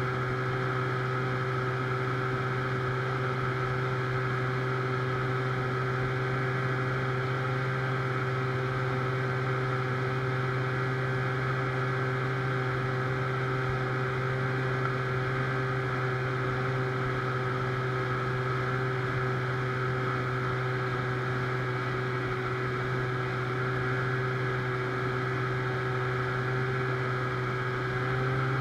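An aluminum boat's outboard motor running at steady throttle, pushing the boat along the river: an even drone that holds one pitch.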